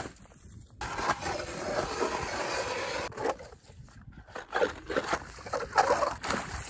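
Hand ice auger being cranked into lake ice, its steel blades scraping and crunching through the ice. A steady grinding stretch from about a second in gives way, after a brief pause, to uneven louder bouts.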